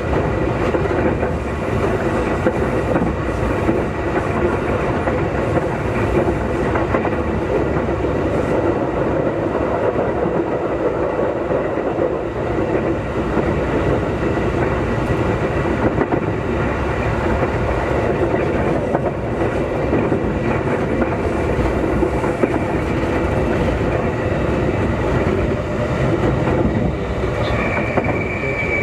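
Keikyu 2000-series electric train car DeHa 2052 running, heard from inside the car: steady wheel-on-rail running noise with a faint constant whine. A higher tone comes in near the end.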